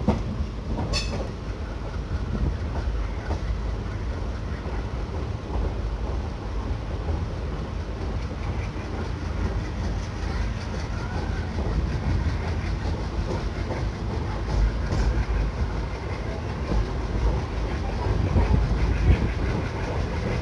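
Passenger train coach running at speed: a steady rumble of the wheels on the track, with clickety-clack over the rail joints.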